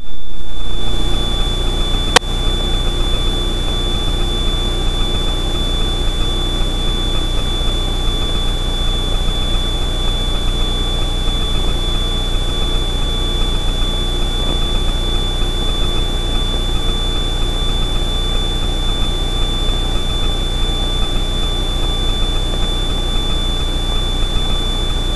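Steady drone of an Extra 300L's six-cylinder Lycoming engine heard in the cockpit during a climb, with a steady high-pitched whine over it. A sharp click comes about two seconds in, and the drone is a little quieter after it.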